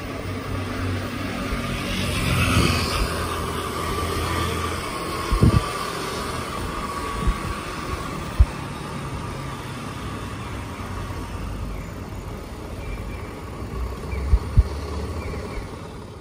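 Street noise heard from a moving bicycle: a steady traffic and road rumble, swelling with a passing vehicle's whine about two seconds in, with a few sharp knocks from the bike jolting over bumps. It fades out at the end.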